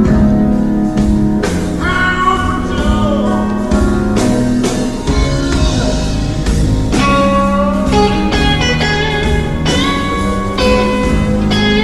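Electric blues guitar playing sustained, bending lead lines over bass and drums, between sung lines of a slow blues.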